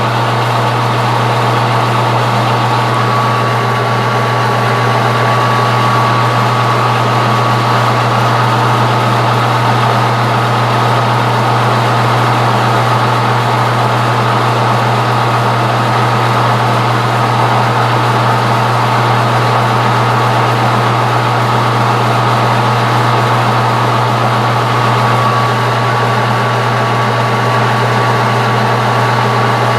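Metal lathe running steadily, its motor and drive giving a constant low hum with a thin steady high whine. It is taking a light, shallow facing cut on the end of bar stock, one step of a stepped convex curve.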